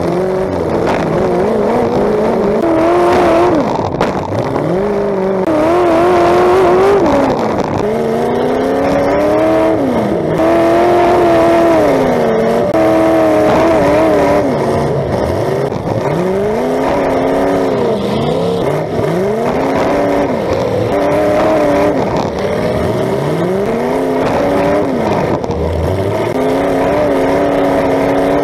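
Demolition derby car's engine, running through open exhaust pipes that stick straight up out of the hood, revving up and falling back again and again, its pitch rising and dropping every couple of seconds.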